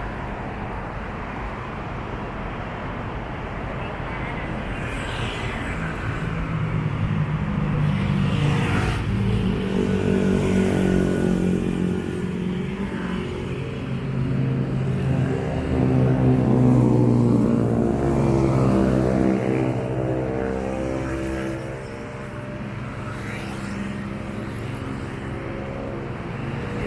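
Road traffic on a wide city avenue: a steady noise of passing cars and motorcycles, with one vehicle's engine growing louder from about a quarter of the way in, loudest about two-thirds through, then dropping away.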